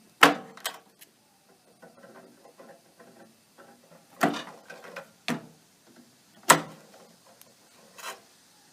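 Pliers pulling wire connectors off the terminals of a discharged microwave oven capacitor: a series of sharp metallic clicks, about six spread out over the stretch, with faint rubbing and rattling of metal parts between them.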